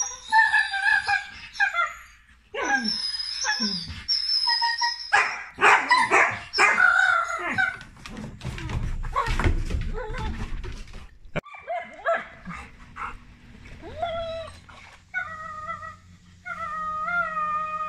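Two dogs, a Chesapeake Bay Retriever and a chocolate Labrador, playing 'bitey face': a string of high, wavering whines and yips, with a rougher, noisier stretch in the middle and a run of repeated similar whines near the end.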